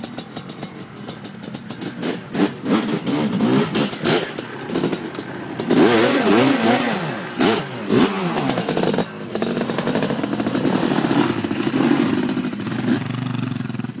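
Dirt bike engines revving, the pitch rising and falling in repeated sweeps, loudest as one bike passes close by about six to eight seconds in; a steadier engine note follows near the end.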